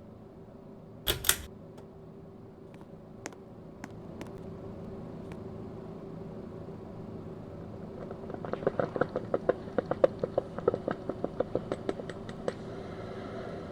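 53-inch Six's Fan Co La Frontera ceiling fan running with a steady motor hum that gets a little louder about four seconds in. A sharp double click comes about a second in, and a fast run of irregular clicks, about five a second, near the end.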